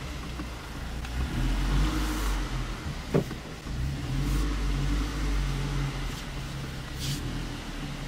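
Scion tC's 2.5-litre four-cylinder engine running at low speed as the car creeps backward in reverse, heard from inside the cabin as a steady low hum that rises and falls slightly, with a single short click about three seconds in.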